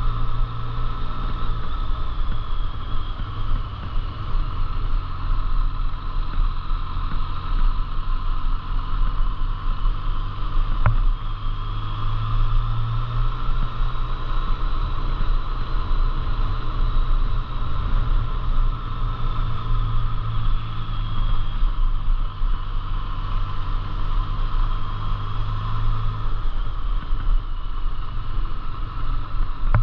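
An engine running steadily, a continuous drone with slight changes in pitch, and a single sharp click about eleven seconds in.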